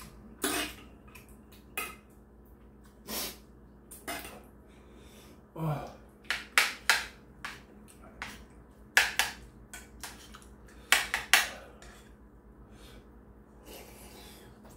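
Eating sounds: a metal spoon clinking and scraping against a ceramic bowl and the stew pot in sharp, separate clicks, some in quick clusters, with mouth noises in between and a short hummed "mm" about six seconds in.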